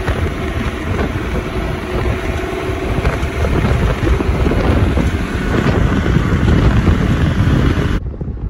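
Heavy wind rumbling on the microphone, with the steady hum of a running motor underneath. About eight seconds in, the high hiss cuts off abruptly and only a lower rumble remains.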